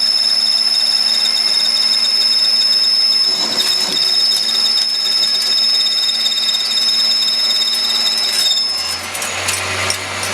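Bench-top metal lathe running with a steady high-pitched whine, which stops a little over eight seconds in; light metallic clicks and knocks follow.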